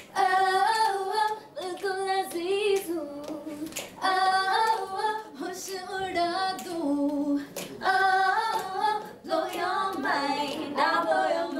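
Several young women singing a Hindi pop song unaccompanied, one voice leading with others in chorus. The lines come in short phrases of held, stepping notes with brief breaks between them.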